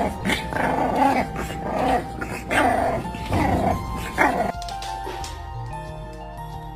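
A dog barking and yipping in a string of short calls, about one every 0.7 seconds, over background music; the barks stop after about four and a half seconds and the music carries on alone.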